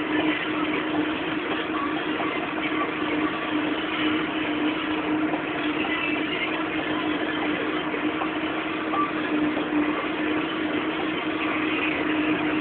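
Deutz-Fahr Agrotron K100 tractor's diesel engine running steadily under load while pulling a cultivator, heard from inside the cab as an even drone with one constant tone.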